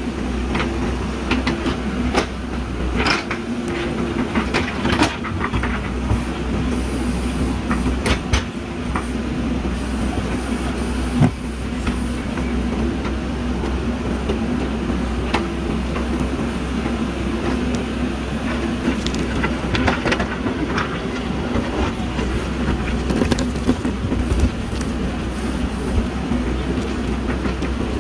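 JCB backhoe loader's diesel engine running steadily under work, with scattered knocks and clanks throughout.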